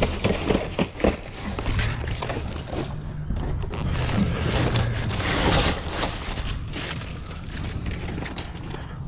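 Cardboard boxes and plastic bags being handled and shifted inside a dumpster: a run of knocks at first, then a louder burst of rustling about five seconds in, over a steady low rumble.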